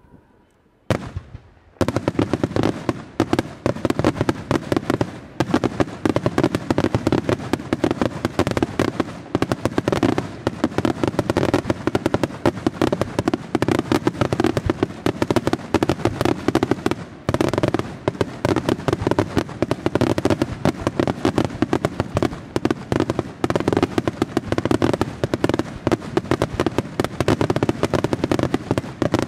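Senatore Fireworks aerial display. A single report comes about a second in. From about two seconds in there is a dense, continuous barrage of rapid bangs from many shells bursting at once, briefly thinning twice.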